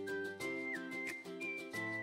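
Gentle background music: held chords with a few short high notes over them.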